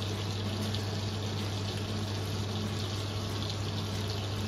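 Butter and oil sizzling and bubbling steadily in a frying pan as they heat toward beurre noisette, over a steady low hum.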